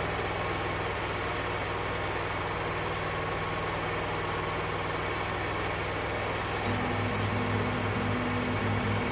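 An engine idling steadily. From about seven seconds in, low tones come and go in short steps over it.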